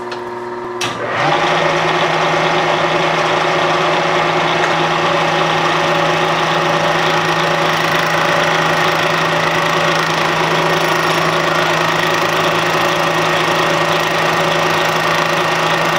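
Milling machine with a single-insert cutter facing the top of a tough cast iron valve body casting. The cut begins about a second in, and from then on a steady, loud cutting noise rides over the machine's hum.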